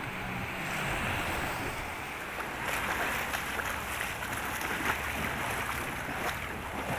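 Small surf breaking and washing up a shallow sandy shore: a steady hiss of foaming water that grows more crackly after a couple of seconds.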